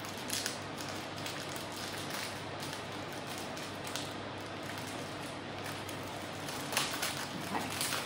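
A Lotus Biscoff biscuit packet being worked open by hand: crinkling and rustling of the packaging, with a brief crackle about half a second in and a run of sharper rustles near the end, over a steady background hiss.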